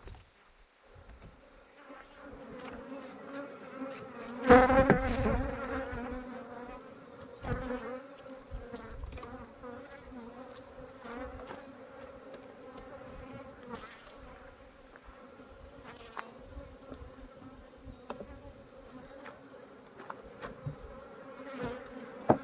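A colony of honeybees buzzing steadily around an opened hive, agitated by the inspection. About four and a half seconds in, one bee buzzes loudly close by, its pitch wavering, the loudest moment.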